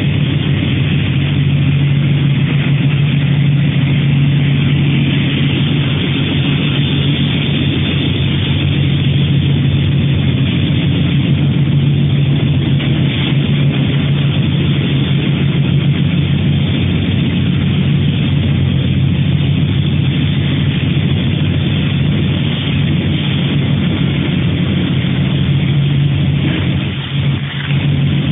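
Rotary sawdust drying machine running: a loud, steady industrial machinery hum with a low drone and a hiss over it, dipping briefly near the end.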